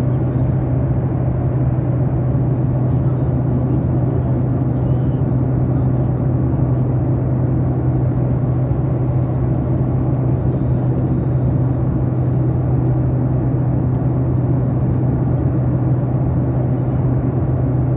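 Steady cabin noise of an airliner: the engines and airflow make a constant low drone with a strong low hum beneath a rushing noise.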